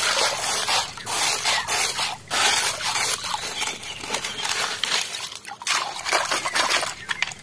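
A hand splashing through shallow water and scraping wet gravel out of a plastic toy dump truck, then swishing a small toy through the water: a steady run of irregular splashes, sloshes and gravel rattles.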